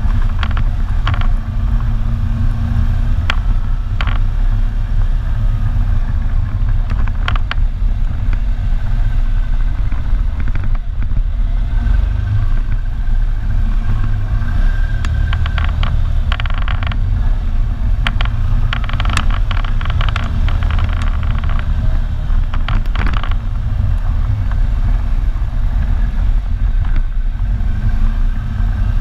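Quad ATV engine running steadily while riding a rough, muddy trail, under heavy wind rumble on the handlebar-mounted microphone. Scattered knocks and clatter come from the machine jolting over bumps and ruts, thickest in the second half.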